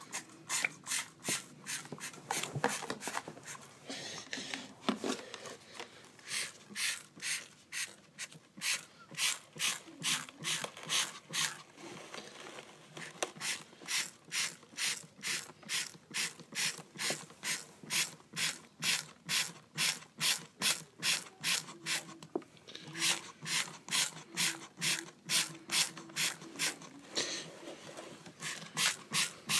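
Hand-worked mechanism of a homemade model car wash gantry clicking steadily, about two to three clicks a second, with a few short pauses.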